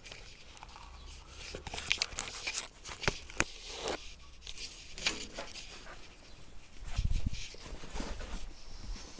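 Handling noise from a hand-held camera being moved about: irregular clicks, scrapes and rustles, with the sharpest click about three and a half seconds in and a low thump about seven seconds in.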